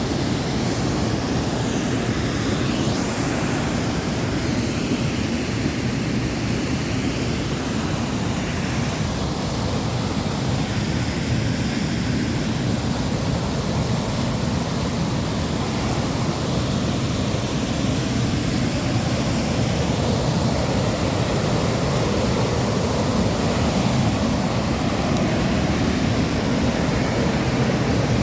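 Waterfall in a mountain gorge: a steady rush of falling water, deep and unbroken.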